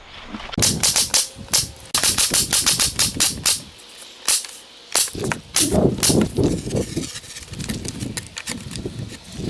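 Staple gun fastening carpet, firing in quick runs of sharp snaps, about three a second at first, then more spaced out. Background music plays along with it.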